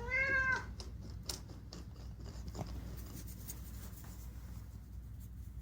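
A cat gives one short meow, about half a second long, that rises and falls in pitch right at the start. Faint scratching and rubbing with a few light taps follow.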